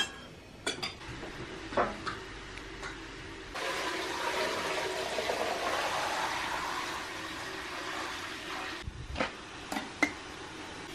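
Water poured from a metal can into a samovar, a steady splashing pour of about five seconds whose pitch rises as the samovar fills. A few sharp clinks of cutlery come before it, and metal clinks near the end.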